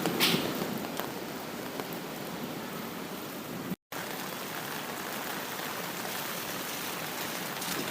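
Steady rain hiss, with the tail of a thunder rumble fading out in the first second. Partway through, the sound cuts out completely for a split second, a splice in the recording, then the rain resumes.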